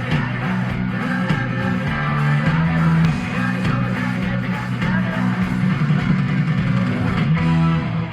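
Live rock band playing loud through a PA: guitars, bass and drums together, cutting off suddenly near the end.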